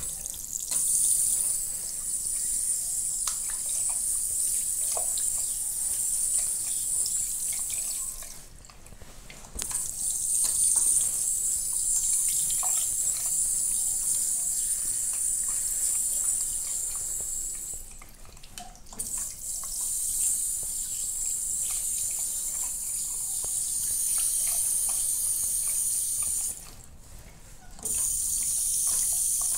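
Self-closing push tap running water into an Armitage Shanks ceramic washbasin with a steady splashing hiss. Each run lasts about eight seconds, shuts off on its own, and the tap is pushed on again after about a second, three times over.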